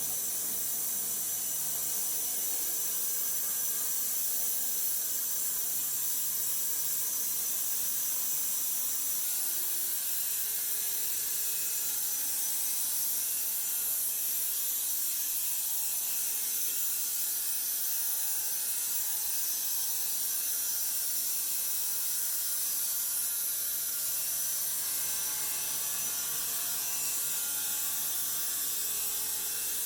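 Woodworking machinery running steadily: a constant high hiss with faint steady mechanical tones underneath, unchanging throughout.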